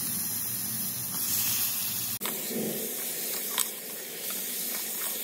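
Marinated chicken sizzling in hot oil and onions in a cooking pot: a steady frying hiss that dips for an instant a little after two seconds in, with a light clink of the stirring spoon about three and a half seconds in.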